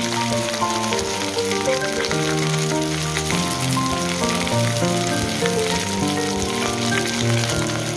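Whole sea bream and ginger slices sizzling as they fry in oil in a nonstick pan, a steady crackling hiss. Background music with changing notes plays over it.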